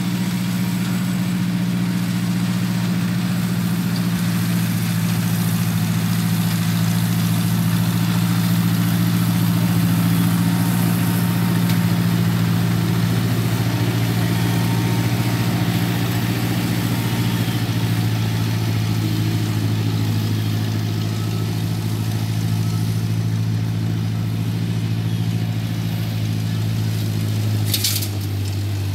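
Tractor engine running steadily at working speed, driving an Alamo SDH74 flail mower through short grass. Near the end there is a brief sharp hiss, and the engine note drops slightly.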